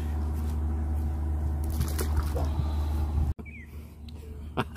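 Water splashing as a carp is lowered and released back into the water, over a loud steady low hum. About three seconds in the sound drops abruptly to a quieter background, with one sharp tap near the end.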